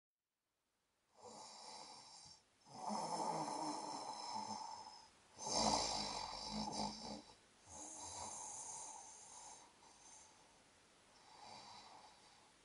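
A person snoring in their sleep: about five slow, noisy breaths, each one to two seconds long, starting about a second in and growing fainter toward the end.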